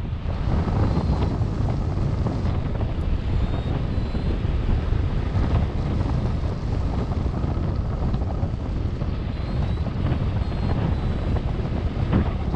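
Steady rush of airflow buffeting the microphone of a camera flying with a paraglider, a deep, even roar with no engine tone.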